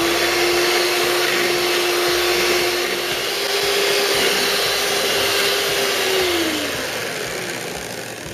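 Electric hand mixer running on slow speed, its metal beaters whipping cream and sugar in a steel bowl: a steady motor hum over a whirring hiss. Near the end the hum drops in pitch and fades as the mixer winds down.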